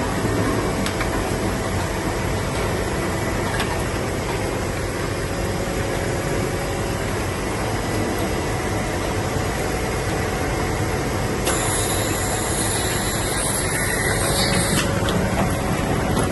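Automatic bottle filling and capping machine running with a steady mechanical hum and faint clicks, and a hiss lasting about three seconds near the end.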